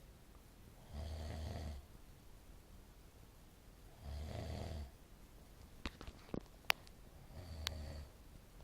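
A sleeping pet snoring: three snores about three seconds apart, each under a second long. A few sharp clicks come in the second half.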